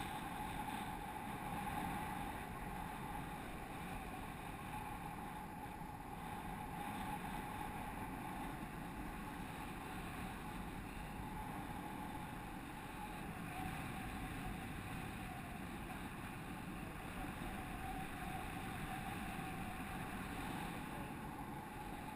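Steady rush of airflow over the microphone of a camera on a paraglider under winch tow, with a faint steady hum running through it.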